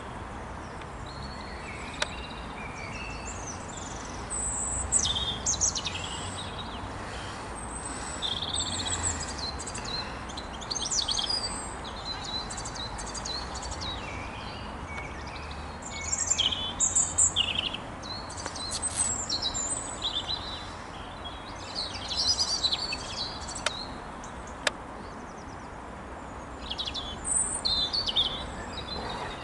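Small birds chirping and singing in repeated short bursts, over a steady low rumble, with a couple of sharp clicks.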